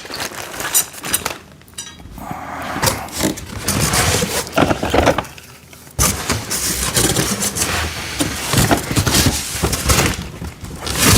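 Parts of a metal and plastic parts-storage rack being unpacked and set down: irregular clattering, knocking and scraping of metal brackets and plastic bins, with packaging rustling. The sound breaks off suddenly about six seconds in and starts again.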